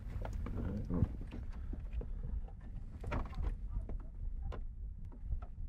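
Irregular small clicks and knocks of computer parts and screws being handled and set in place in a PC case, over a low handling rumble.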